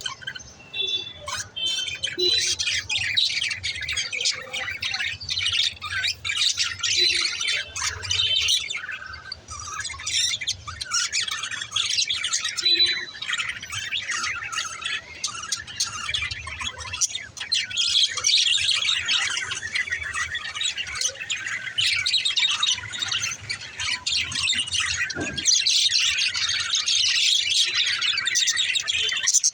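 Pet budgerigars chattering and chirping nonstop, a dense mix of warbles, squawks and quick chirps.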